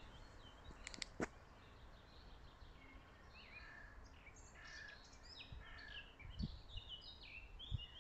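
Faint songbirds chirping and singing, many short quick notes, often falling in pitch, over a low steady background hum. Two sharp clicks about a second in.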